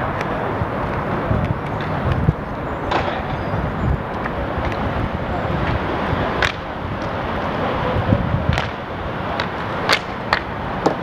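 Roller hockey play on an outdoor rink: inline skate wheels rolling and scraping on the surface under steady background noise, with several sharp clacks of hockey sticks scattered through, a few of them close together near the end.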